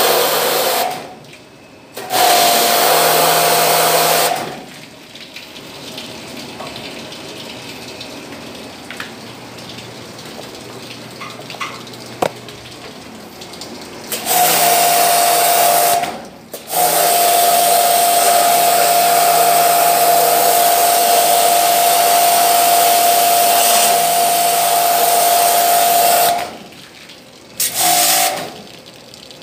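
Pressure washer spraying in bursts: a hissing water jet over a steady pump-motor whine, cut off and restarted several times as the trigger is released and pulled again. The longest run, in the second half, lasts about ten seconds.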